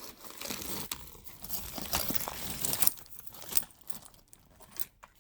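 Vintage costume jewelry being handled: rustling and crinkling of packaging with small metal clicks and clinks of the pieces, busiest over the first three seconds and sparser after.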